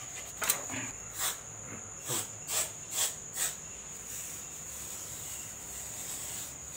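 A steady high-pitched trill, like an insect chirping continuously, with about six short clicks or taps in the first three and a half seconds.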